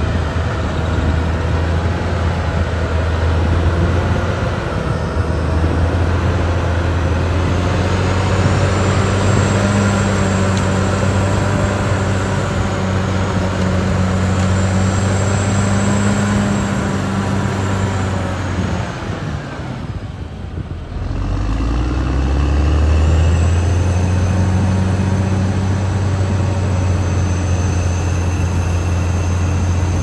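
Caterpillar D6R XL bulldozer at work: its diesel engine running steadily under load, with a thin high whine above the engine. The sound drops away briefly about two-thirds of the way through, then picks up again with a deeper rumble.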